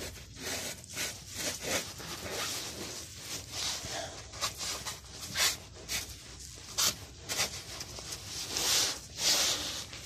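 Pipe wrench turning the inner tie rod end off a 2007 Kia Ceed's steering rack: irregular rasping, scraping strokes of metal on metal as the wrench is worked round and regripped.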